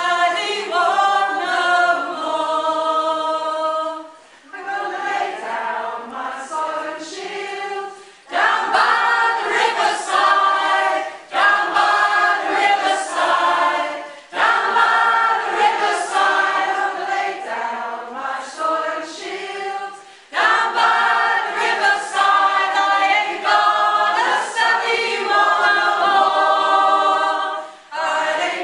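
A community choir singing a song together, phrase by phrase, with brief breaks between the phrases.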